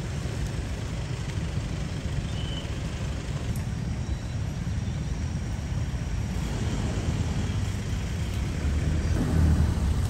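Steady low rumble of road traffic, swelling about nine seconds in as a Toyota Hilux pickup truck pulls out onto the road.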